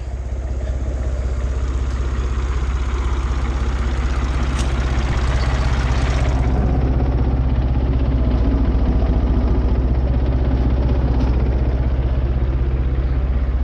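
International Harvester tractor engine idling steadily while its hydraulics lower the hay mower-conditioner head. A hiss on top of the engine stops about six seconds in.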